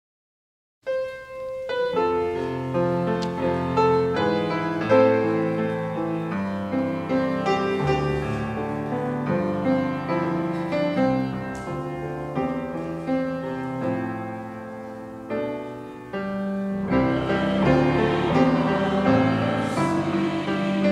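Piano music playing slow chords and a melody, starting about a second in after a brief silence, and growing fuller near the end.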